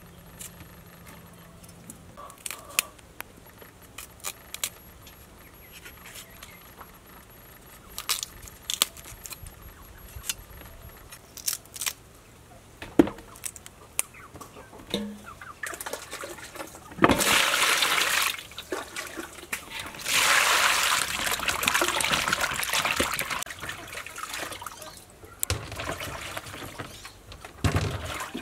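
Light clicks and knocks, then water running into a stainless steel basin of vegetables in two long spells past the middle, and water sloshing near the end as the vegetables are washed by hand.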